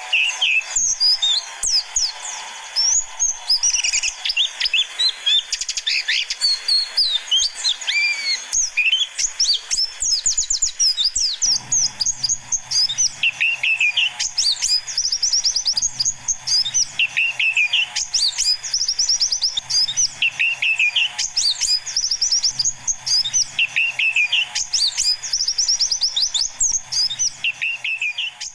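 Mountain white-eyes (pleci dakun) singing and twittering in a dense flurry of rapid high chirps. From about halfway, a lower slurred phrase repeats roughly every two seconds over a faint low hum.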